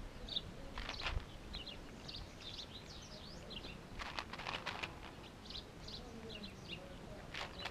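Small birds chirping in short, repeated calls, with a few brief crackling noises from cats eating out of a plastic food tray: about a second in, around four seconds in and near the end.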